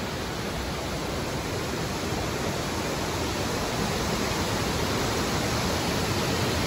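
Steady rushing hiss of falling water, slowly growing a little louder.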